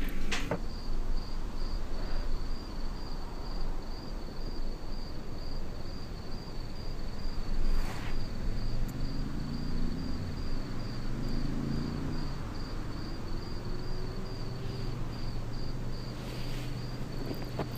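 A cricket chirping in a steady, even rhythm: one high note repeated several times a second. Underneath it is a low hum that glides up and down in pitch midway through.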